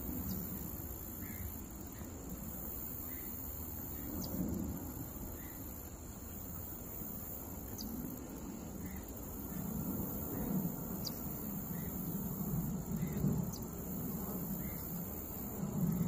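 Outdoor ambience: a steady high insect drone, with faint short chirps about every second and a low rumble that grows louder in the second half.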